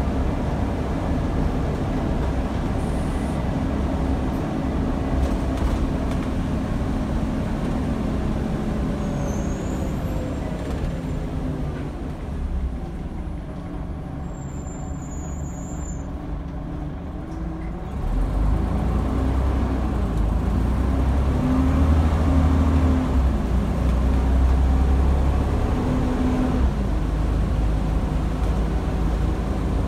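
Scania DC9 diesel engine of a Scania N94UD double-decker bus heard from inside the lower deck. The engine note falls away as the bus slows and runs quieter for a few seconds. Just past the middle it rises loudly again with a deep rumble as the bus pulls away and accelerates.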